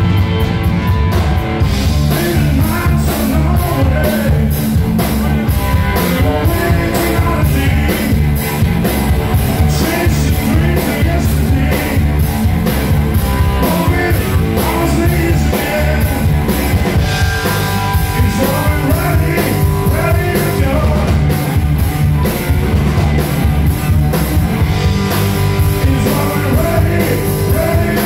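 Live electric blues band playing loud, heard from the audience: electric guitar over a drum kit and bass, with keyboard on stage.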